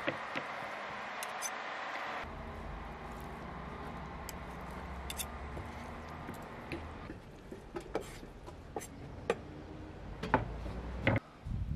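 A large kitchen knife cutting and shredding tender boiled beef short rib meat on a wooden cutting board: soft squishy cutting with scattered taps of the blade on the wood. The taps get louder and more frequent in the second half, with a sharper knock near the end as the meat is scraped off the board.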